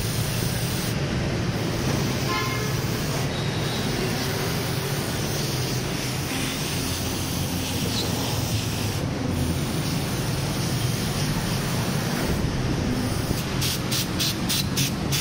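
Aerosol carburetor cleaner hissing out through its extension straw into a motorcycle carburetor, in long sprays broken by a few short pauses, then a run of quick short squirts near the end, over a steady low rumble.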